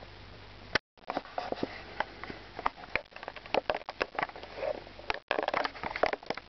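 Handling noise from a hand-held camera being moved about: irregular clicks and rustling, starting about a second in after a faint steady hiss.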